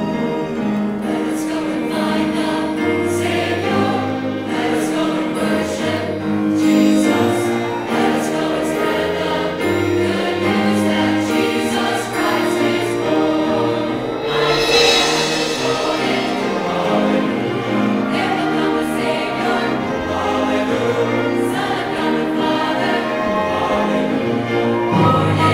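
Mixed choir singing a Christmas cantata with orchestral accompaniment of strings and piano.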